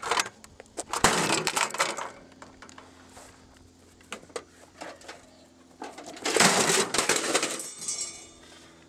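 Metal and glass crashing and clattering on asphalt as a broken microwave door and then a metal toaster are smashed on the ground: two loud bouts of clatter, one about a second in and a longer one around six seconds in.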